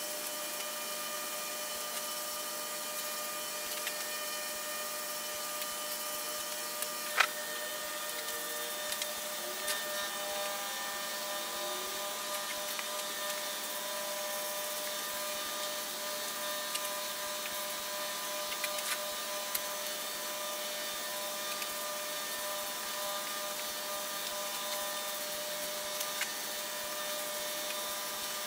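Steady whirring hiss with a constant hum from an electric fan running, with a sharp click about seven seconds in and a few faint ticks.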